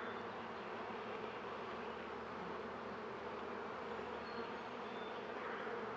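Honeybees buzzing steadily around an opened Langstroth hive during an inspection, an even, unbroken hum. The colony is calm and undisturbed by the handling.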